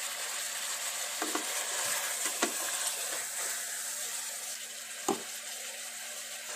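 Chicken and vegetables sizzling as they fry down in a pressure cooker pot while being stirred with a spatula, with a few light clicks of the spatula against the pot, the sharpest about five seconds in.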